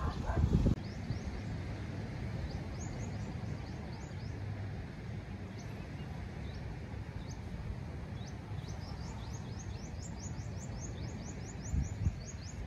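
Small birds chirping: short, high notes that slide downward, scattered at first and then coming thick and fast over the last few seconds, over a steady low outdoor rumble.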